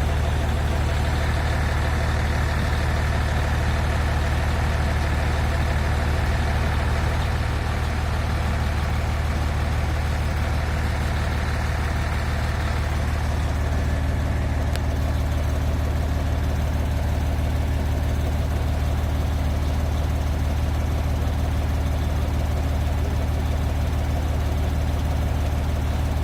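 Diesel engine idling steadily with a constant low hum; a faint higher tone joins it about halfway through.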